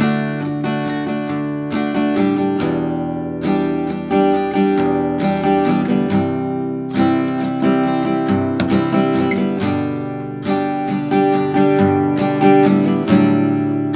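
Background music: an acoustic guitar strumming chords in a repeating rhythm.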